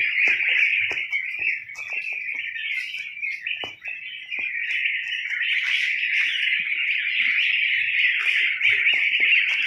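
A large brood of about two-week-old ducklings peeping together in a dense, unbroken high chorus, with light knocks scattered through it.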